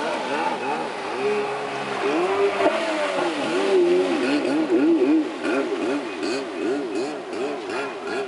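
Kawasaki X2 jet ski's two-stroke engine revving up and down in quick repeated swells, its pitch rising and falling again and again, faster in the second half.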